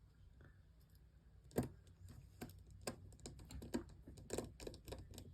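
Small, irregular clicks and taps of a tiny phone screw and screwdriver being handled while reassembling a smartphone. The sharpest click comes about a second and a half in.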